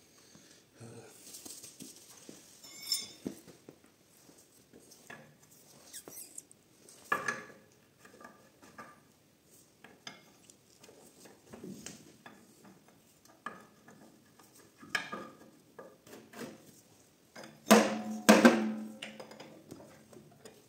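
Steel pry bar levering at the casing of an Audi multitronic CVT gearbox to split it, making scattered light metal clicks, knocks and scrapes. A louder cluster of ringing metal clanks comes near the end.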